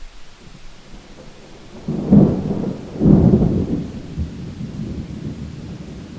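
Thunder over steady rain: a clap about two seconds in, a second louder crash a second later, then rumbling that slowly fades.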